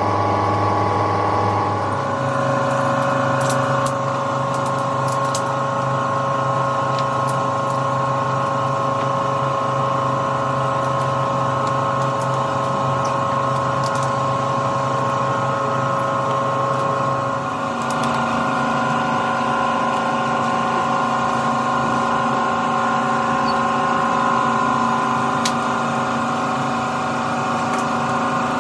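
Open two-roll rubber mixing mill running, a steady machine drone of motor and gearing with several held tones and a few faint ticks. The mix of tones changes abruptly about two seconds in and again near the eighteen-second mark.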